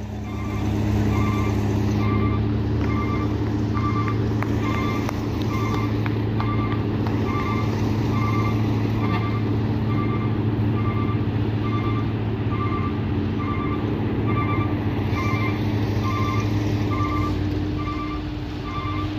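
A heavy diesel truck engine running under load, with a truck's reversing alarm beeping steadily about once a second over it.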